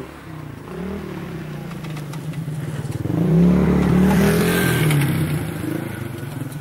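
A motor vehicle's engine passing: a steady engine note that grows louder to a peak a little past the middle, then fades.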